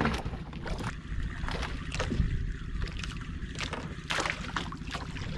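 Wind buffeting the microphone over sea water sloshing against a small outrigger fishing boat, with irregular brief slaps and knocks.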